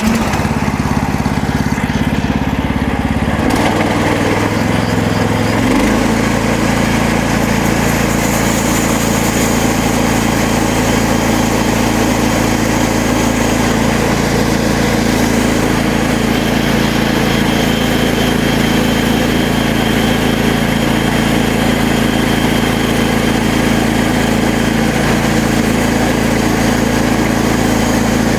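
Small gasoline engine of a MechMaxx SM32 portable band sawmill running; its note steps up over the first six seconds as it is throttled up, then holds steady under load while the band blade is fed slowly through a small cedar log.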